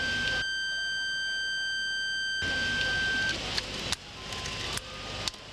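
Electronic buzzer on a magnet-polarity test jig sounding one steady high-pitched tone. It signals that both magnets in the separator are mounted the right way round. The tone stops about three seconds in, and a few light clicks follow.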